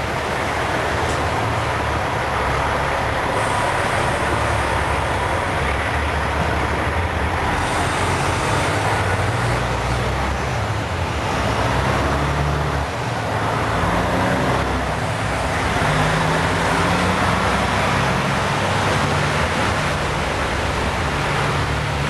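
Traffic on a snowy street in a blizzard: trucks running past, with a steady loud noise and a low engine hum that steps up and down in pitch.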